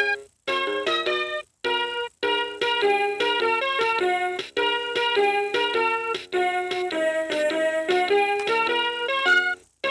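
Electronic toy melody played in simple piano-like notes from the VTech Explore and Learn Helicopter's built-in sound chip, a nursery-song tune in short phrases that stop abruptly with brief gaps between them.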